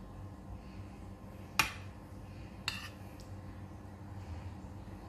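A metal spoon clinks against a plate twice as yogurt-soaked dahi vadas are spooned onto it. The first clink, about a second and a half in, is the louder; the second comes about a second later.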